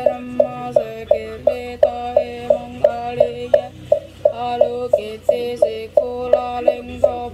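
Buddhist liturgical chanting in a steady rhythm, one syllable to each beat, with a sharp knock marking every beat about three times a second.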